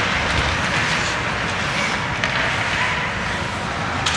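Ice hockey game in play: a steady hiss of skates on the ice with a few sharp clacks of sticks and puck, the loudest near the end.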